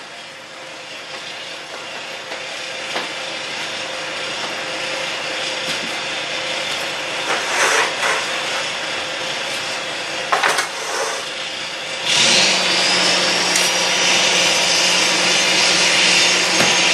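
Steady hiss of compressed air from the truck filling the trailer's air-brake lines, slowly growing louder. About twelve seconds in it gets louder, with a high whine that rises and then holds, and a low steady hum.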